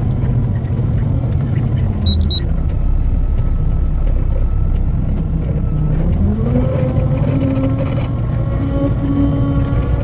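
Truck engine and road noise heard from inside the cab while driving, the engine pitch rising about six seconds in as it picks up speed, then holding steady. A brief high chirp sounds about two seconds in.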